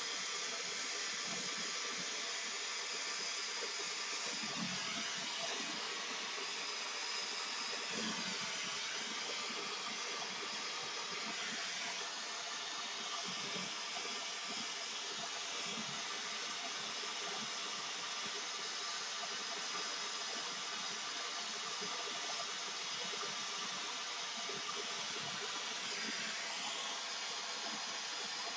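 Air-acetylene brazing torch flame burning steadily against a copper refrigerant line joint, an even rush of noise that holds at one level throughout.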